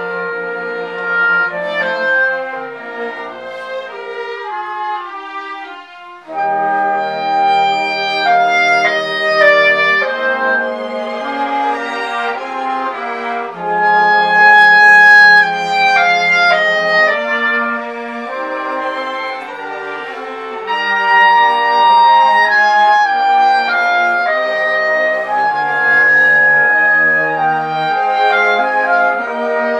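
Clarinet playing a solo melody over a small string ensemble of violins, violas and cellos. The music dips briefly about six seconds in, then the full group comes back louder.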